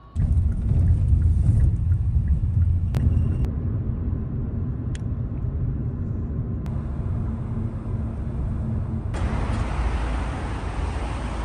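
Steady low road rumble heard from inside a moving car. About nine seconds in it gives way to the broader noise of traffic passing on a busy road.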